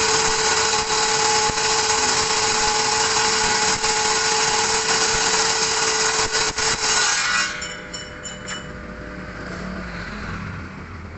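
Electric power tool running steadily on wood with a steady whine, cutting off suddenly about seven seconds in, leaving a quieter background with a few light clicks.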